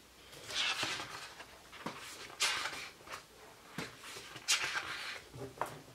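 Pages of a large hardcover photo book being turned and smoothed by hand: a series of soft paper swishes and rustles, the loudest about two and a half seconds in.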